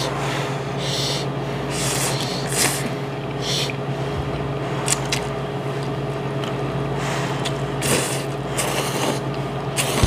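People slurping ramen noodles, a run of repeated sucking slurps, over a steady low hum.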